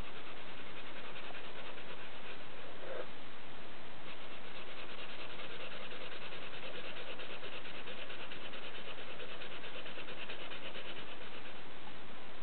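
Purple colouring pen scratching on sketchbook paper in quick back-and-forth strokes as an area is filled in, over a steady hiss; the scratching is busiest from about four seconds in to near the end.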